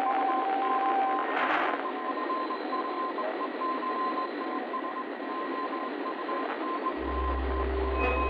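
Electronic sound design: a steady static-like hiss with thin sustained tones running through it, a short burst of noise about a second and a half in, and a deep low drone coming in near the end.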